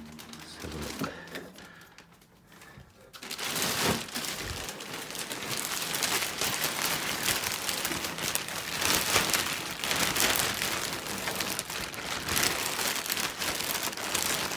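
Clear plastic packaging crinkling and rustling as it is handled. It starts about three seconds in and continues densely after that.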